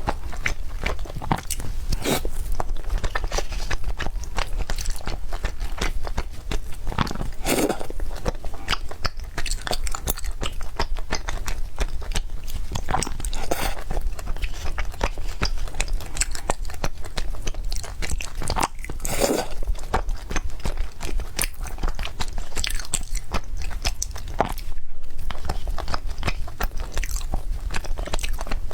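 Close-miked eating sounds of cake: wet chewing, biting and small mouth clicks and smacks, with louder bites about seven and nineteen seconds in, over a steady low hum.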